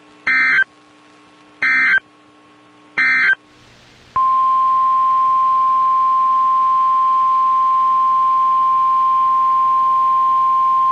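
Emergency Alert System SAME header: three short, evenly spaced bursts of screechy digital data tones. About four seconds in, a steady single-pitch warning alarm tone starts and holds. Together they mark the start of a weather warning broadcast on NOAA Weather Radio.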